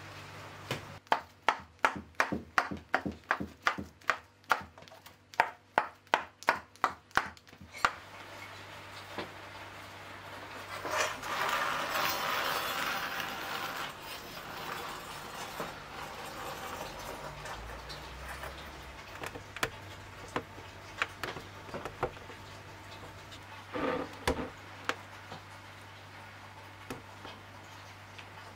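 A run of regular knocks, about three a second, for several seconds. Then a wood fire burns in a traditional oven with scattered crackles and a brief rush of hiss.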